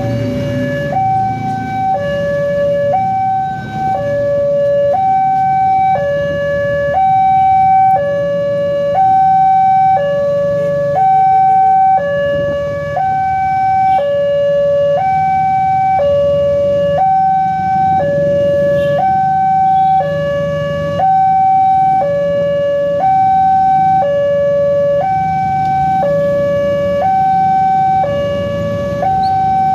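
Railway level-crossing alarm sounding its electronic two-tone warning: a higher and a lower tone alternating, each held about a second, signalling a train approaching while the barrier is down. Road traffic hums underneath.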